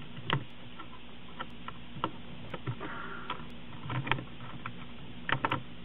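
Plastic laptop keys on an HP Pavilion DV9000-series keyboard clicking under fingers as a refitted keycap is pressed and worked into place: scattered light clicks, with a quick run of several clicks near the end.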